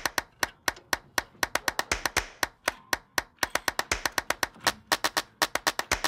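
Socket ratchet clicking in quick runs of sharp clicks, about six to eight a second with short pauses between strokes, as the mounting bolts of a new electric trailer brake assembly are run down.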